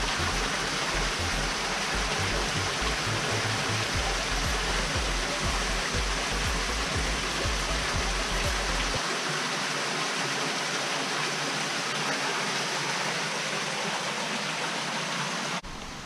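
Water from a small creek cascade splashing steadily into a rock pool, a constant rushing hiss. A low rumble under it stops about nine seconds in.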